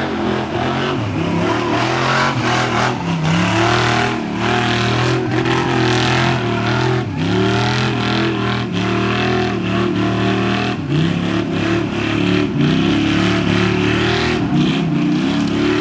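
Lifted pickup truck's engine revving hard as it churns through deep mud, its pitch rising and falling over and over as the driver works the throttle.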